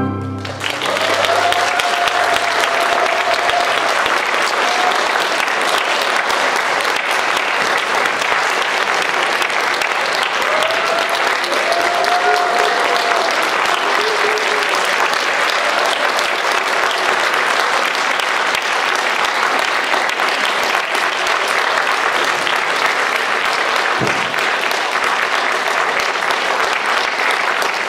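Concert-hall audience applauding steadily, starting as the orchestra's last chord dies away.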